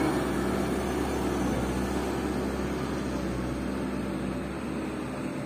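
Engine of a small sand-laden diesel dump truck running steadily as it drives away, slowly fading.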